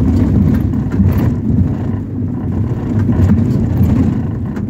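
Ford Transit minibus on the move, heard from inside the passenger cabin: a steady low rumble of engine and road noise, with a few faint clicks.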